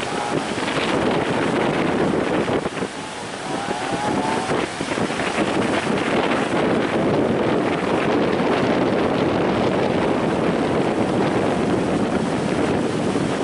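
Strong wind buffeting the microphone over the continuous wash of breaking surf.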